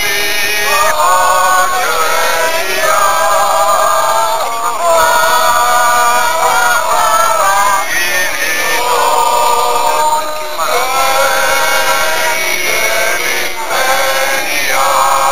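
A group of people singing together, mostly men's voices, in long held phrases with short breaks between them.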